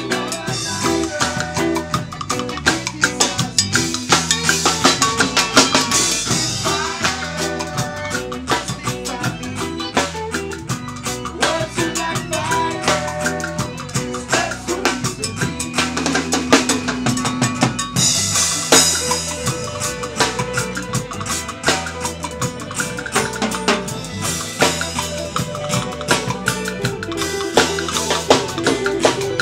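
Live band playing a song at full volume: drum kit with cymbal crashes and steady drumming under electric guitar.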